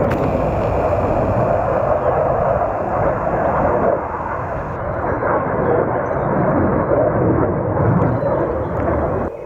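Military aircraft engine noise, a loud steady rumble that drops off suddenly near the end.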